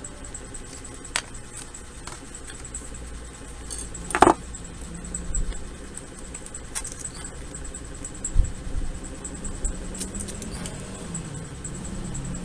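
Masking tape being laid and pressed onto a keyboard for a tape mod: scratchy rustling and small clicks of tape and parts being handled, with a sharp knock about four seconds in and a dull thump a little after eight seconds.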